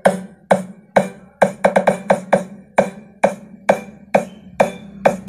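Electronic dance music played through homemade cardboard-box speakers with 2-inch drivers: sharp percussive hits about two a second, with a quick run of hits near the middle, over a steady low tone.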